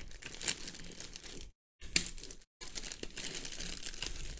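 Thin clear plastic bag crinkling and rustling as hands handle it, with two brief drops to silence.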